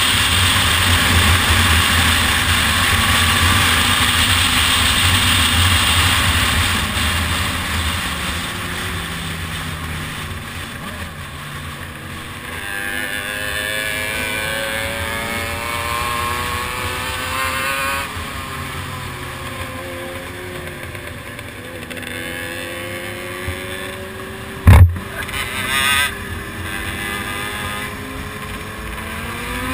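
Motorcycle engines on the move, with wind noise on the microphone: a loud steady rumble at first, then several engines rising and falling in pitch as they accelerate and shift gears. Near the end comes one sharp loud bang, with a shorter burst a second later.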